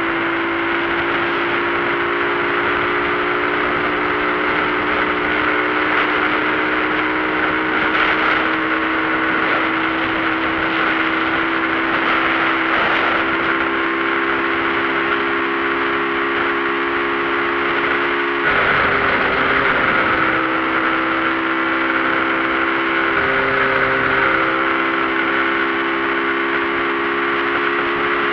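Motorcycle engine running at a steady speed while riding, with a loose exhaust bolt. The engine note breaks briefly about two-thirds of the way through and changes pitch slightly a few seconds later.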